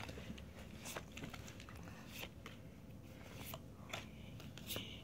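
Faint scattered clicks and light rustles of Pokémon trading cards being laid out and spread by hand on a carpet.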